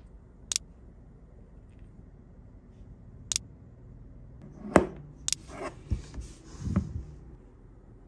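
A handful of sharp, separate clicks and knocks, the loudest a little under five seconds in, followed by a short run of duller knocks and rustling near the end.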